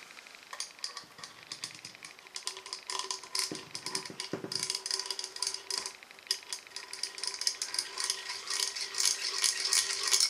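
A small metal screwdriver clicking and scraping against the metal rim of a clock case as a part is worked into place: rapid, irregular clicks that grow busier in the second half.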